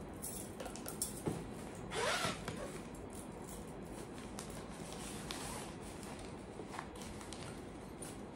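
A zipper pulled in one short stroke about two seconds in, with soft rustling and a few small clicks as items are handled and packed into a suitcase.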